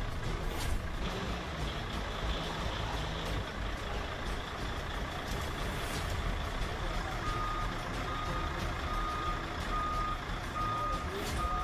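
Yale forklift's engine running, with its reversing alarm starting about seven seconds in: a single high beep repeating evenly, about three beeps every two seconds.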